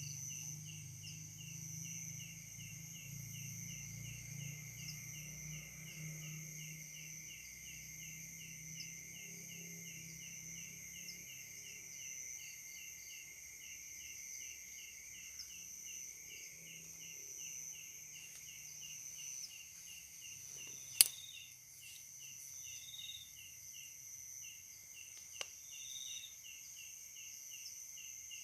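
Night insect chorus: a fast, even pulsing trill over constant high-pitched drones, with short high chirps now and then. A sharp loud click comes about two-thirds of the way through, and a smaller one a few seconds later. A low hum fades out about halfway through.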